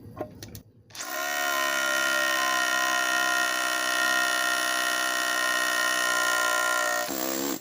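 Craftsman CMCH233B brushless SDS-Plus rotary hammer drilling into a concrete slab in hammer-drill mode. It starts about a second in, runs at a steady pitch for about six seconds, then stops and briefly winds down.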